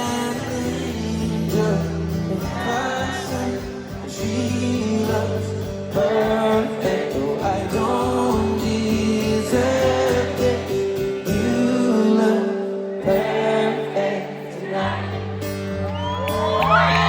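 Live pop ballad with acoustic guitar, bass and singing, played through a stadium sound system. Crowd whoops begin near the end.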